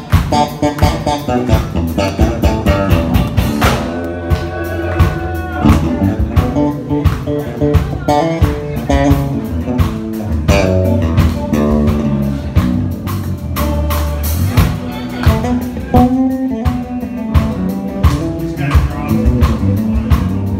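Live band music: an electric bass playing a moving line over a drum kit.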